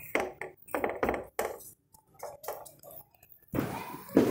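Spatula knocking and scraping against a nonstick frying pan while a paratha is worked in it, a run of short separate clatters, then a soft steady hiss from about three and a half seconds in.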